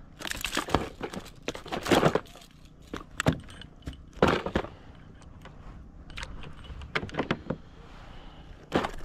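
Irregular rustling, clicks and light knocks of a fish being unhooked in a plastic kayak, with the lure's hooks jangling.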